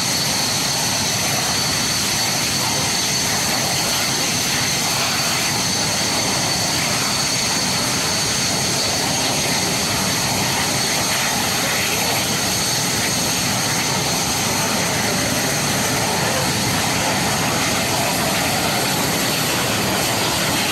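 BAE Hawk T1 jet trainers taxiing, their Adour turbofan engines running at taxi power: a steady high whine over a broad, even rush of jet noise.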